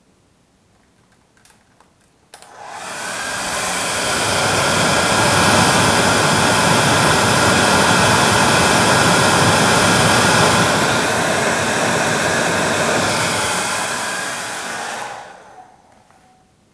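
Hair dryer blowing: a click about two seconds in, then its motor and fan build up over a second or so to a steady loud rush of air, and near the end it is switched off and runs down.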